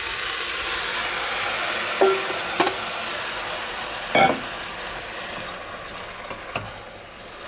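Freshly chopped tomatoes hitting hot oil and fried onions, garlic and peppers in a stainless pot: a sizzle that is loud at first and fades over the following seconds. A wooden spatula stirs them in, with a few knocks against the pot; the loudest comes about four seconds in.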